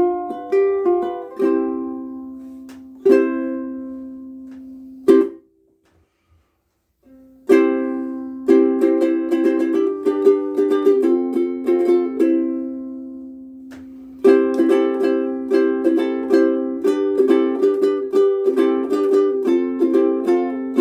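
Koaloha Opio ukulele with Kamaka Black Nylon strings, played in plucked chords and single notes that ring out and fade. About five seconds in the playing is cut short and stops for under two seconds, then resumes, with a long ringing chord before a busier run of notes in the second half.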